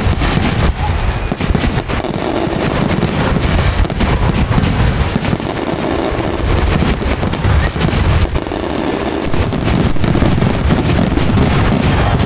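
Fireworks display in a dense barrage: aerial shells bursting in rapid, overlapping booms and sharp reports with no let-up.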